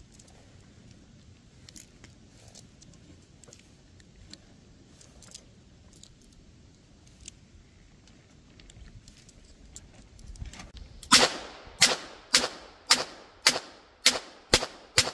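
Charter Arms Target Pathfinder .22 LR revolver emptied in eight quick shots, about two a second, each a sharp crack. Before the shooting, faint metallic clicks of .22 cartridges being pushed into the cylinder.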